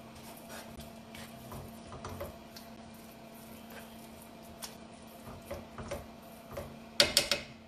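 Spatula stirring a thick creamy chicken mixture in a nonstick skillet: soft, scattered scrapes and taps, with a few sharper clacks of the utensil against the pan about seven seconds in. A low steady hum runs underneath.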